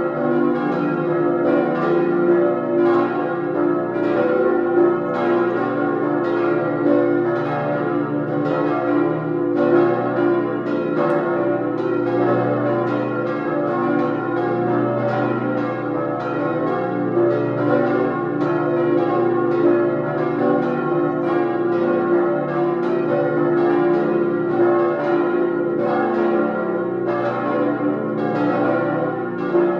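Full peal of cast-steel church bells swinging together, their strokes overlapping in a steady, dense ringing with no pause.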